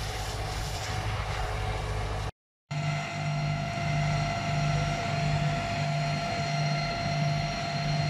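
Fire truck engine and pump running steadily at the fire scene, with a hiss of water spraying from a hose at first. After a brief gap about two seconds in, the engine sound carries a steady whine over a low throb that pulses a little more often than once a second.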